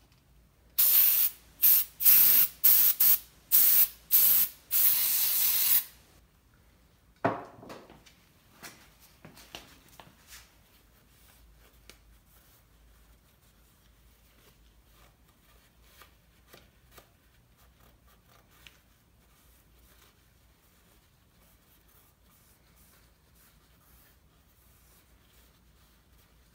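Aerosol carburetor cleaner sprayed onto a rag in several short hissing bursts and one longer burst of over a second. A single knock follows, then faint rubbing as the rag wipes down the 4.6 engine block's main bearing saddles.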